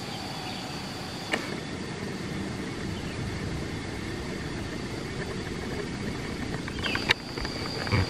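Insects chirring steadily at a high pitch over a low rustling background, with a sharp click about a second in and another near the end.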